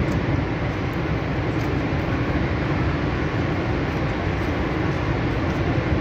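Steady roar of water pouring over the Horseshoe Falls at Niagara: a constant, even rushing noise, heaviest in the low end, with no break or change.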